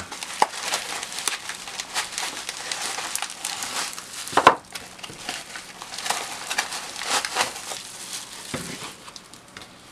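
Cling-film plastic wrap and a white foam sleeve crinkling and rustling under hands as a plastic-wrapped car phone holder is pulled out, in irregular crackles with one louder crackle about four and a half seconds in.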